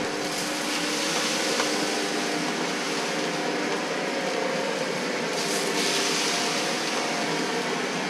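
Shark NZ801UKTSB upright vacuum cleaner running steadily on its hard-floor setting as it is pushed over a wooden parquet floor. A higher hiss swells twice, early on and again about two-thirds of the way through.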